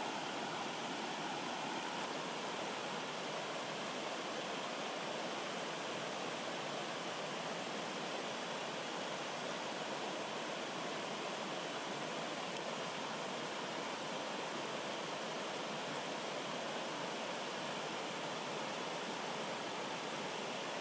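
Rocky forest stream rushing over small cascades: a steady, even water noise with no separate splashes standing out.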